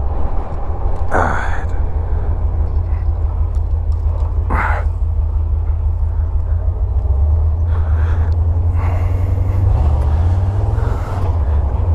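A 1982 Jeep CJ7's 5.7-litre V8 running under way, heard from inside the vehicle as a loud, steady low rumble. Two short, sharper noises cut through it, about one second and four and a half seconds in.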